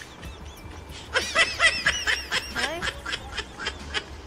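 A woman laughing, a run of quick giggles starting about a second in and fading out near the end.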